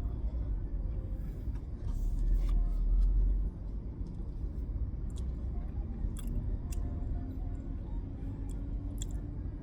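Low outdoor road rumble, like wind and traffic noise heard while riding along a road, swelling louder for a second or so about two seconds in.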